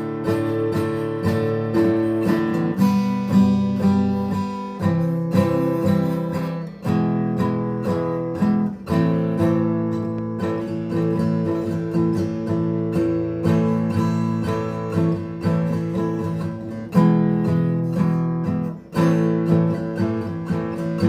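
Acoustic guitar music: strummed chords in a steady rhythm.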